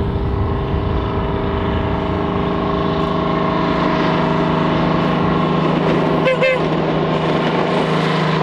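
Victorian Railways Diesel Electric Rail Motor 58RM's GM 6-71 diesel running steadily as the railcar approaches and passes close by, a loud, even engine hum with a deepening low drone as it draws level.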